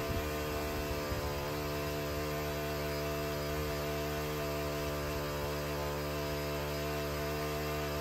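The small four-stroke gasoline engine of a Portable Winch PCW3000 capstan winch running steadily under load as it hauls logs across frozen snow. Its pitch shifts slightly about a second and a half in.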